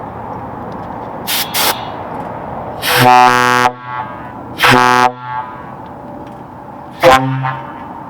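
Truck air horn sounded in three blasts on a single low note: one of about half a second, one shorter, and a brief toot near the end. Two short hisses of air come about a second in, before the first blast.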